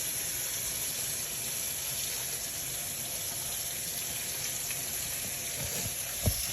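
Eggs, bacon and Spam frying in a pan, with a steady sizzle. There is a soft knock near the end.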